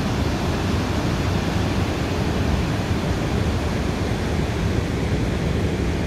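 Dettifoss waterfall pouring with great force: a steady, dense rushing with a strong low rumble.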